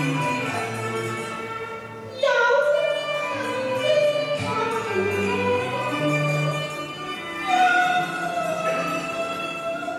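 Cantonese opera (粵曲) music with a melody of held, sliding notes. Louder phrases enter about two seconds in and again near the end.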